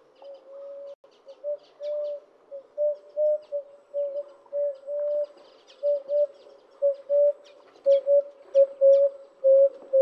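Wood dove calling: a long series of soft coos on one low pitch, the notes spaced out at first, then shorter and quicker toward the end. Faint high chirps of other small birds sound over it.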